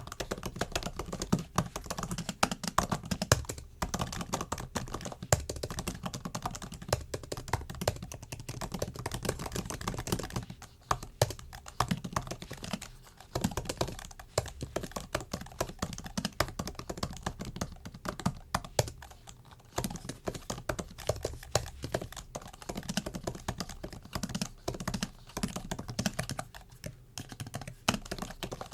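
Typing on a MacBook's built-in keyboard: a fast, irregular run of light key clicks with short pauses now and then.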